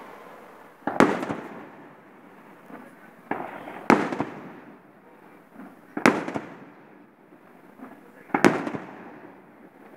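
Aerial firework shells, peony type, bursting in the sky: about five sharp bangs spaced a couple of seconds apart, each followed by a rolling rumble.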